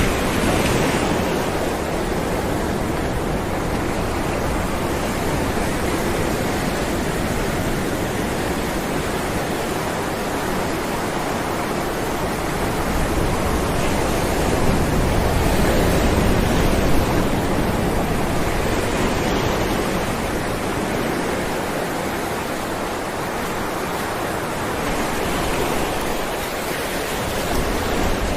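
Ocean waves breaking against rocks: a steady rushing wash of surf that swells louder about halfway through, then eases.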